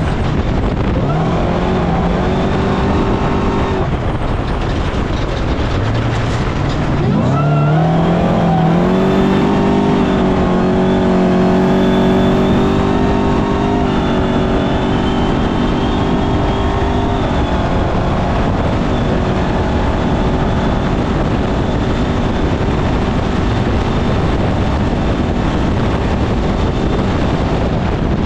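Off-road race vehicle's engine running hard under heavy wind and terrain noise. It revs up about a quarter of the way through, holds a high, steady pitch, then eases back into the noise past the halfway point.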